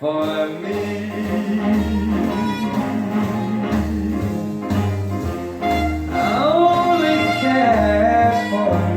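Recorded jazz-orchestra music with bowed strings and a double bass line, no vocals, played back through Magnepan SMG-C planar-magnetic panel loudspeakers.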